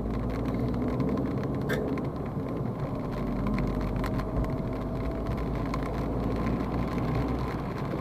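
Inside a small Abarth hatchback's cabin as it drives off from a stop: a steady low rumble of the car and tyres, with hail and rain ticking on the roof and windscreen in scattered sharp clicks.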